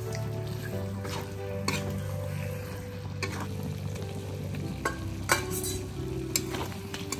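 Mutton and potato curry sizzling in a metal pan while a spatula stirs it, with sharp scrapes and clicks of the spatula against the pan every second or so. Background music plays underneath.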